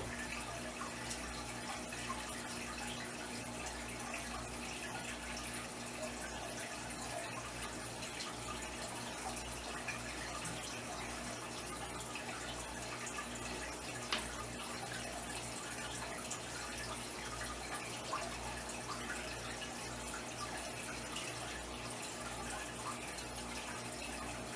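Aquarium filter running: a steady trickle and splash of water over a low, pulsing hum, with a couple of faint clicks about halfway through.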